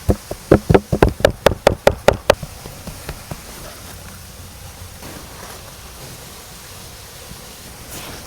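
A quick run of about a dozen sharp knocks, roughly five a second, that stops about two and a half seconds in, leaving a faint steady hiss.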